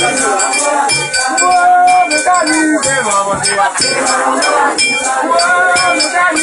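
A group singing a Vodou ceremonial song together over a steady beat of percussion, with a bright metallic ringing struck again and again.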